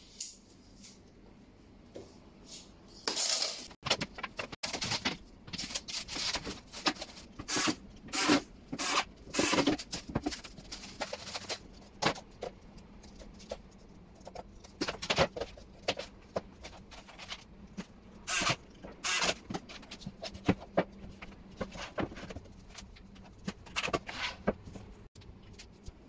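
Flat-pack furniture parts being unpacked and handled: plastic packaging rustling, and boards and metal fittings knocking and clattering, in short irregular bursts.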